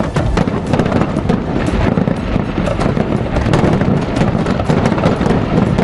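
Fireworks going off in a dense, unbroken barrage of crackles and pops over a steady low rumble.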